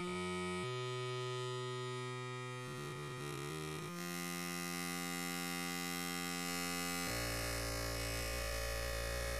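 Held electronic droning tones that jump abruptly to new pitches a few times, turning into a low buzzing hum about seven seconds in.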